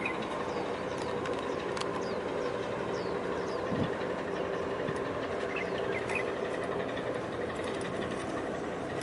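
A large container ship's machinery humming steadily as it passes close by, with several constant tones over a noisy rumble. Faint high chirps of small birds come and go over it.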